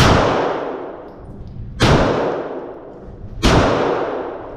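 Three gunshots on a shooting range, a little under two seconds apart, each followed by a long echoing tail that dies away.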